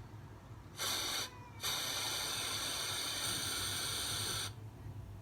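Aerosol spray can hissing: a short spray about a second in, then a longer steady spray of about three seconds.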